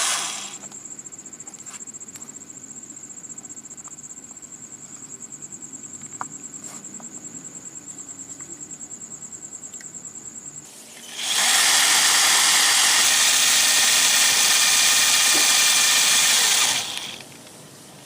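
Small homemade air compressor: a loud rush of compressed air stops just after the start, then the compressor's small motor whines steadily and high for about ten seconds. A second loud rush of air follows for about six seconds and stops suddenly.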